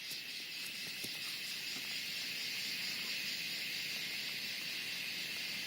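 Cicadas calling in chorus: a loud, steady, high buzzing drone that never breaks.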